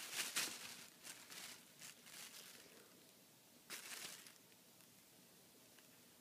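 Thin plastic bag crinkling and rustling as a cat paws and bats at it, in quick bursts over the first couple of seconds and once more about four seconds in.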